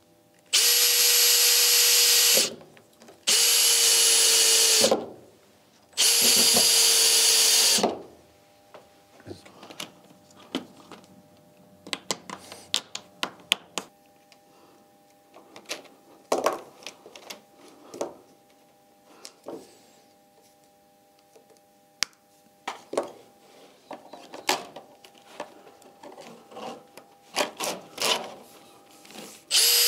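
Cordless drill driving screws into wooden beams: three steady runs of about two seconds each with a constant whine in the first eight seconds, and another starting just before the end. In between, quiet clicks and snips of pliers stripping cable wires.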